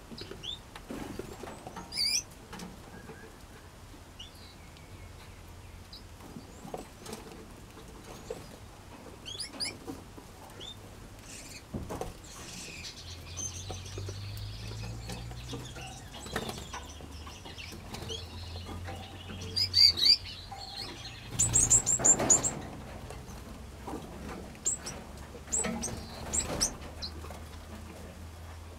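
Small aviary birds, finches and parrots, giving scattered short high chirps and calls among wing flutters, with the loudest bursts of chirping about two-thirds of the way through.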